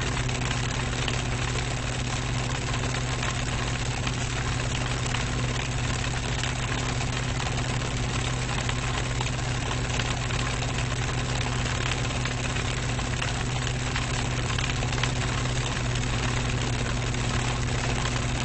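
Old electric fan running steadily at close range: a constant low motor hum with the rush of moving air over it, unchanging throughout.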